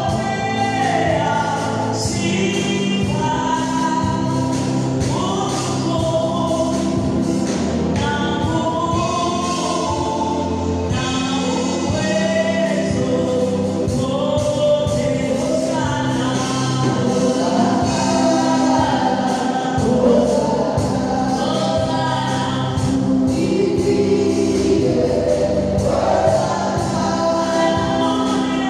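Choir singing a gospel song with instrumental backing and a steady beat.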